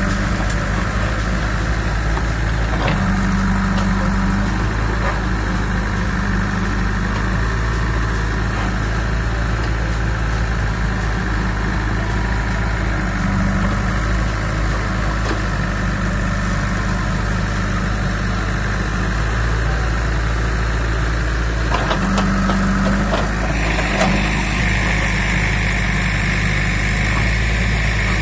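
JCB 3DX backhoe loader's diesel engine running steadily as the backhoe digs, with a steady high whine that grows louder near the end.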